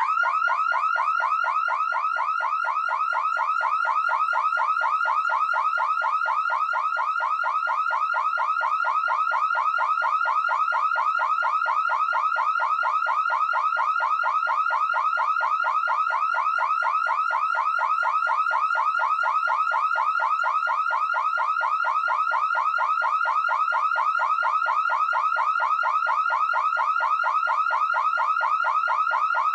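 Electronic alarm siren sounding without a break: a fast, evenly repeating warble of short rising chirps, pitched around 1 kHz.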